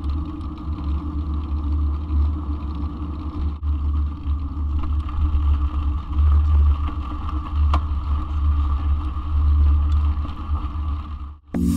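Heavy low rumble of wind buffeting and tyre noise picked up by a camera mounted on a mountain bike riding along a path, the knobby front tyre rolling over asphalt and then a dirt track. A faint rattle runs under it, with a single click about eight seconds in.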